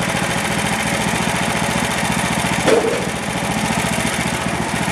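Small gasoline engine of a Frontier OS27 bandsaw mill running steadily, with one short, louder sound about halfway through.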